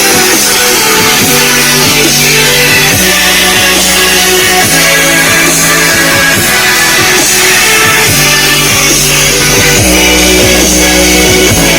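Music with a strong bass line played loud from a phone over Bluetooth through an Unkor home theatre speaker system, its 6.5-inch subwoofer carrying the low notes.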